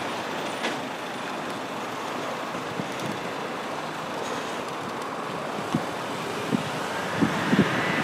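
Steady outdoor background noise, an even hiss with no distinct source, with a few soft low bumps in the second half.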